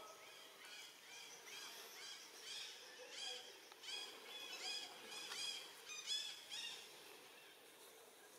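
A baby monkey's high-pitched crying calls, repeated about twice a second, each rising and falling in pitch. The calls grow louder through the middle and stop about seven seconds in.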